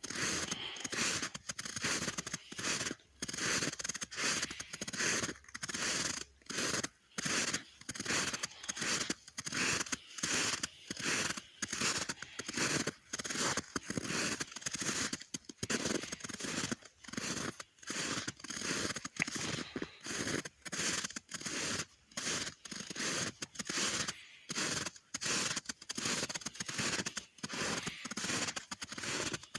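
Footsteps crunching through snow at a steady walking pace, each step a short crunch followed by a brief gap.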